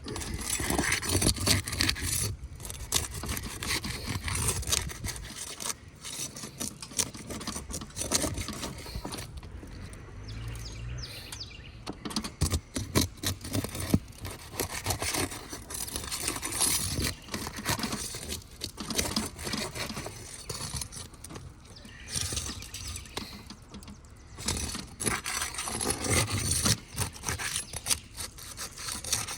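Scraping and rubbing on asphalt 3-tab roof shingles as the shingle is worked on for a repair, coming on and off irregularly, with scattered clicks.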